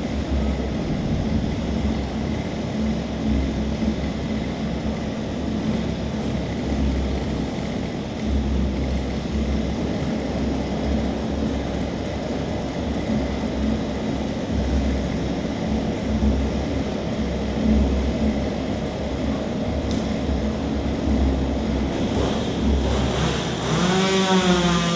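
Chainsaw engine running with a pulsing low rumble, revving up to a high steady pitch about a second before the end.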